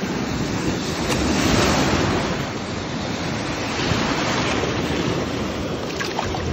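Surf washing in and out over sand at the water's edge, one wave's wash swelling about a second and a half in, with wind buffeting the microphone.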